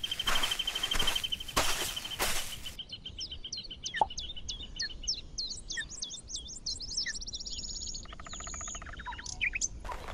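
Songbirds chirping, with many short repeated calls and trills and a rapid trill about eight seconds in. For the first few seconds, rustling footsteps through undergrowth and a steady high trill run under it.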